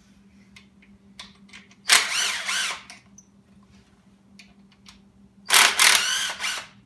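Small cordless power ratchet running in two short bursts of about a second each, the second about three and a half seconds after the first, backing out the thermostat housing bolts so the housing can come off.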